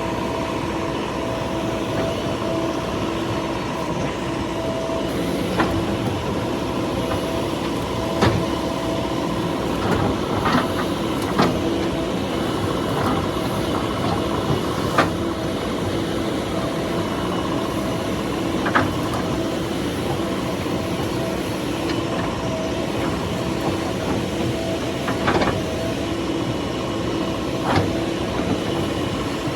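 JCB 3DX backhoe loader's diesel engine running steadily, with a dozen or so short sharp clanks scattered throughout.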